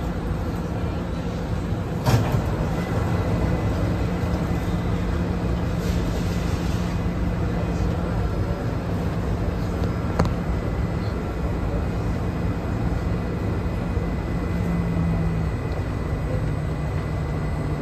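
Interior running noise of a CT251 metro train (Kawasaki & CRRC Sifang) as it draws into a station: a steady rumble with a low motor hum that drops in pitch near the end, as the train slows. A sharp knock comes about two seconds in, and a repeating high beep starts near the end.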